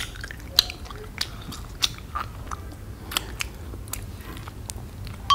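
Close-miked chewing of candy: soft mouth sounds with scattered sharp crunches at irregular moments.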